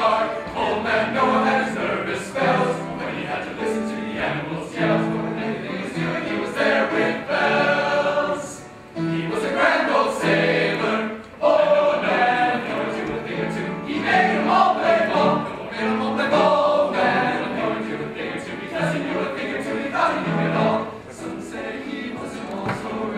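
Men's choir singing a gospel song with piano accompaniment, with two brief breaks in the sound about a third and halfway through.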